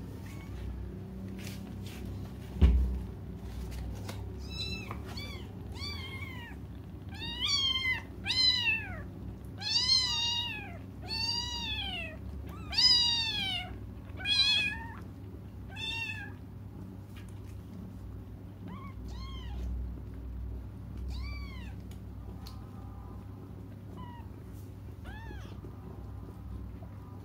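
Newborn kittens crying: a run of high-pitched mews, each rising and falling in pitch, about one a second, thinning to a few scattered cries later on. A single sharp thump about three seconds in.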